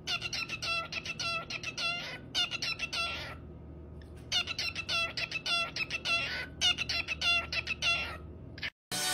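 A cockatiel chirping in rapid runs of short notes: two bursts of about three seconds each, a pause of about a second between them, and a brief bit more near the end.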